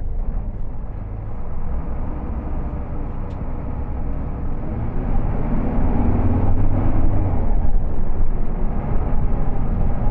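Bus engine and cabin rumble heard from the front seats while driving. About halfway through it gets louder, and the engine's tone rises and then dips as the bus pulls and gathers speed.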